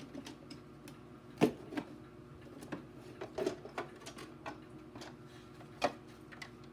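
Scattered clicks and knocks of hands handling and opening the plastic housing of a Hoover Port-A-Power vacuum, with a sharper knock about one and a half seconds in and another near six seconds.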